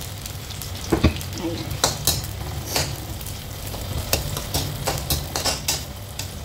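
Sliced onions being stirred in oil in a nonstick wok with a metal slotted spoon: the spoon clicks and scrapes against the pan again and again over the sizzle of the onions frying, the oil having just got hot enough to sizzle.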